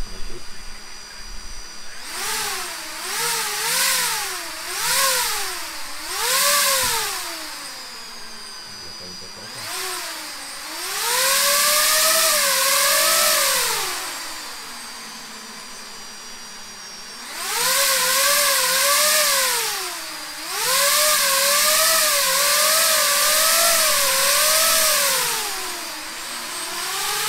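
DJI FPV drone's motors and propellers revving up and down while the drone stays on the ground: four short throttle blips, then longer revs with a wavering whine and a rush of air at each peak.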